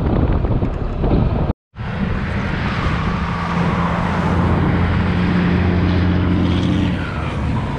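Motor scooter ride: engine drone with wind rushing over the microphone. The sound drops out for a moment about one and a half seconds in, and the engine drone holds steady from about three seconds to seven.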